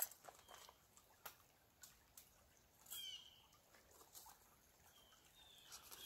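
Faint clicks and crinkles of a plastic food pouch being handled and cut open, with a few short high chirps every couple of seconds.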